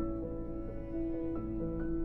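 Soft background music: a gentle piano or keyboard piece with slow, held notes.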